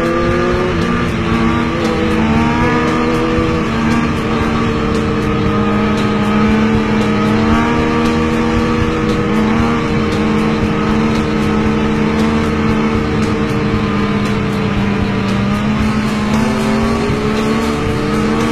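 Sport bike engine held at steady high revs through a long wheelie. The pitch rises and dips slightly a few times, and other motorcycles run alongside.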